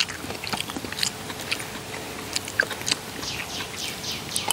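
Close-up chewing of soft tapioca dumplings, with small wet mouth clicks and smacks. From about three seconds in, a bird chirps rapidly nearby, about four short falling notes a second.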